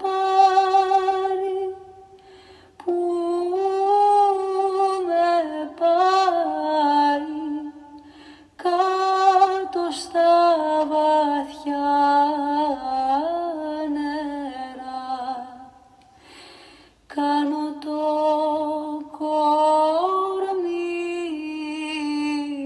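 A woman singing a slow, ornamented melody alone, in long phrases with wavering pitch bends and short breaths between them.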